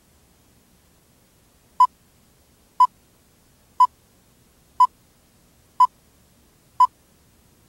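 Countdown-leader beeps: six short identical beeps of one mid-high pitch, one each second, one for each number of the countdown, over a faint hiss.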